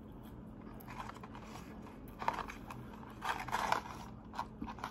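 Soft chewing of McDonald's French fries, then the paper fry carton rustling as it is picked up, about three seconds in, with a few short clicks around it.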